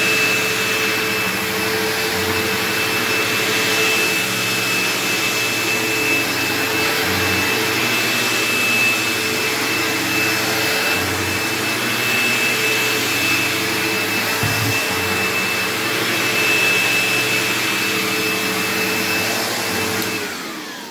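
Hoover Insight 100 commercial upright vacuum running steadily, with a high motor whine over the rush of air. It is switched off near the end and its motor winds down with a falling whine.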